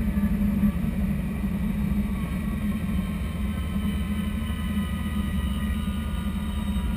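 Bell 206 JetRanger helicopter on the ground with its Allison 250 turboshaft running and the main rotor turning slowly, heard from inside the cabin: a steady low drone with a faint turbine whine above it.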